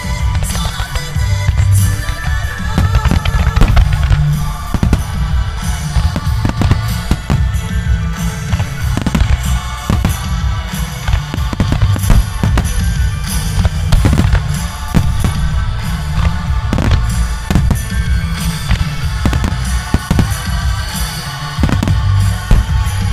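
Fireworks shells bursting in quick, irregular succession, several sharp bangs a second, over music with a heavy beat.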